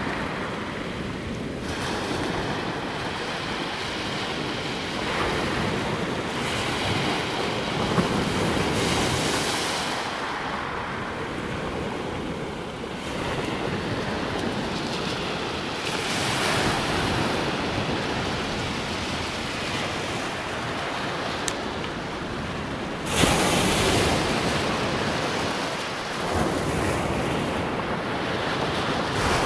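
Sea waves breaking and washing up the beach, the sound swelling and falling with each wave and one louder break about three-quarters of the way through, with wind buffeting the microphone.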